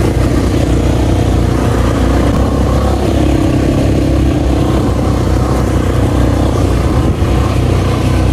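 ATV (quad bike) engine running steadily while being ridden.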